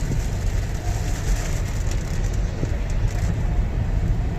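Steady low rumble of a car driving in heavy rain, heard from inside the cabin, with an even hiss of rain and road noise over it.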